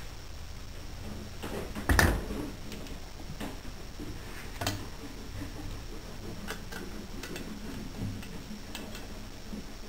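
Scattered metal clicks and knocks from a valve spring compressor being worked on an engine cylinder head to take off the valve springs, with one loud knock about two seconds in.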